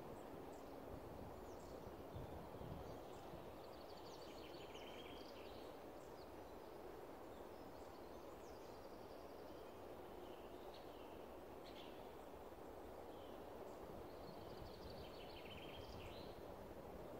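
Quiet woodland ambience: a steady low hiss of background noise with songbirds singing. A phrase of quick repeated notes comes about four seconds in and again near the end, with short chirps between.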